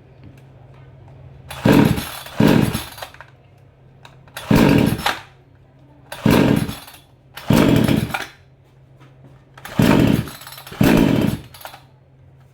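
Two-stroke chainsaw being pull-started over and over: about seven short pulls of the starter cord, each turning the engine over briefly without it catching. The engine had flooded and is being tried again after its spark plug was dried.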